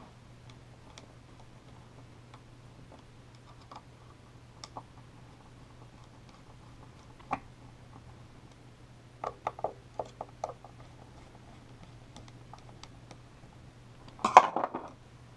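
Small metal clicks and ticks of a screwdriver driving the screws of a lens mount and of the metal lens being handled, with a quick run of clicks partway through and a louder short clatter near the end as parts are put down on the table.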